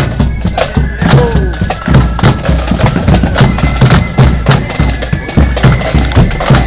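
Marching band playing: rapid snare and bass drum strokes under a high held wind melody.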